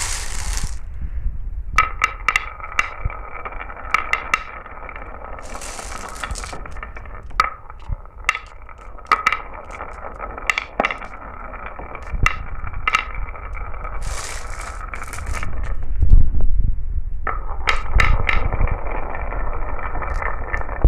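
Glass marbles rolling down a marble run track: a steady rolling rumble with a ringing tone, broken by frequent sharp clicks and clinks as marbles strike the track and each other. Brief hissing swishes come about six seconds in and again around fourteen seconds.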